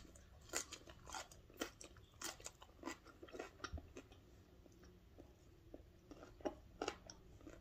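A person chewing a mouthful of food: faint, irregular wet clicks and crunches, about two to three a second.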